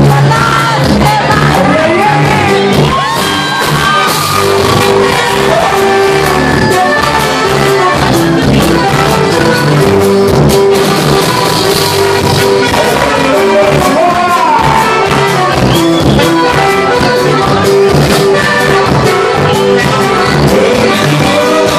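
A live norteño band playing loudly, with saxophone and button accordion carrying the melody over drums.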